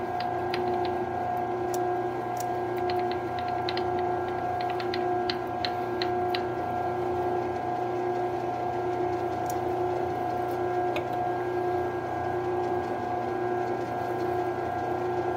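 Grizzly G0602Z bench lathe running with a steady whine while a Milwaukee drill bit bores into the end of the pin in its chuck, with scattered light ticks, most of them in the first half.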